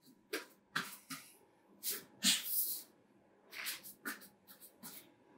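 A person exercising, breathing out in short, irregular hissing puffs with soft rustles and taps, during inchworm walk-outs on the floor.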